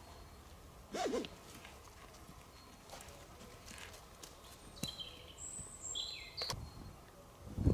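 Small birds giving short high chirps that step down in pitch, with a few scattered sharp knocks and a couple of dull thumps, the heaviest near the end.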